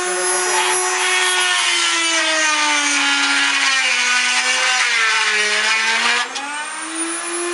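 Electric motor of a homemade bench machine whining as a thin 10 mm metal rod is pushed along a guide against its spinning disc, cutting into the rod. The whine sinks steadily in pitch under the load while a rough grinding noise grows, then climbs back quickly when the rod comes off about six seconds in.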